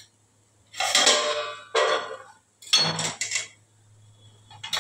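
A metal spoon scraping and clinking against a kadai (wok-like pan) as spiced vegetables are scooped out, in three short scrapes and one more near the end.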